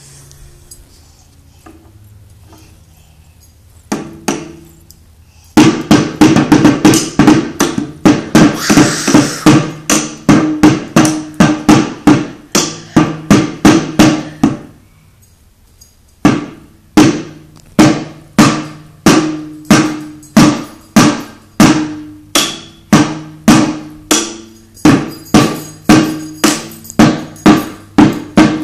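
First Act Discovery 'Fun in a Drum' toy drum struck with wooden drumsticks: after a few quiet seconds a single hit, then a run of quick strikes, a short pause, and a steady beat of about two strikes a second.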